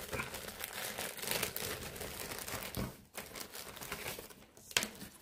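Clear plastic bags of Playmobil parts crinkling as they are handled, in uneven crackles with two brief lulls.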